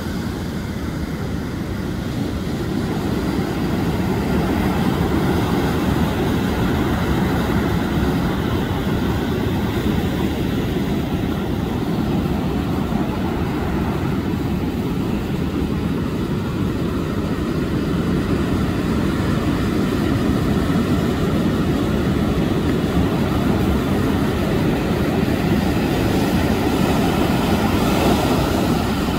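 Ocean surf breaking and washing up a sandy beach, mixed with wind on the microphone: a loud, steady low noise that swells up over the first few seconds and then holds.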